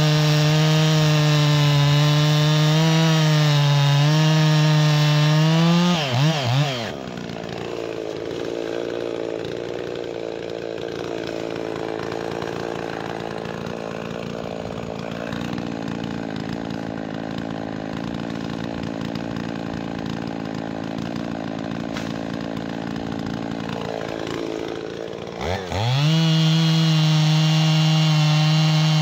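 Two-stroke chainsaw cutting through a log at full throttle, then dropping back to idle about six seconds in. It idles for roughly twenty seconds, then revs back up and cuts again near the end.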